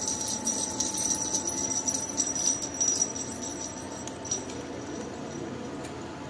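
Small bell and metal tags on a cat's collar jingling as the cat moves its head while being petted. The jingling is busy for the first half, then dies down to an odd tinkle.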